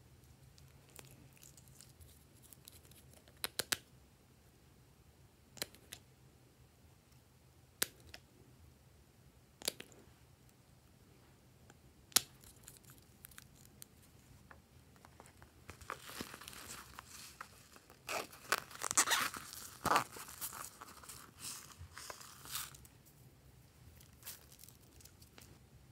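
A few sharp plastic clicks and taps from a small plastic tube of slime being opened and handled, then several seconds of crinkling and rustling from shiny shredded strips being handled and sprinkled.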